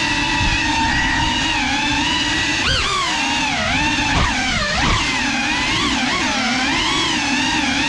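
GEPRC Cinelog 35 FPV cinewhoop's motors and propellers whining, the pitch wavering up and down with the throttle. There are sharp rises in pitch about three seconds in and again between four and five seconds.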